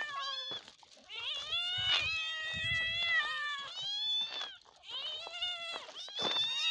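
Several young cats meowing over one another in long, high-pitched calls that rise and fall, begging for food. There are short lulls just under a second in and about four and a half seconds in.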